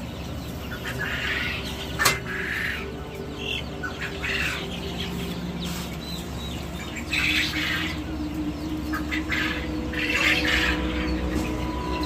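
Chickens squawking and chirping in scattered calls, with a sharp click about two seconds in.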